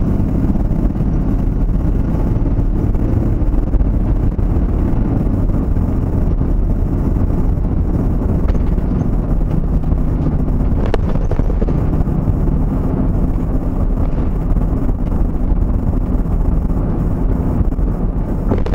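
A vehicle driving along, with a steady low rumble of engine and road noise.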